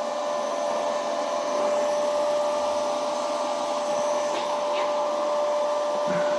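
Steady whirring drone of an electric blower-type motor, with one constant whine over an even rushing noise.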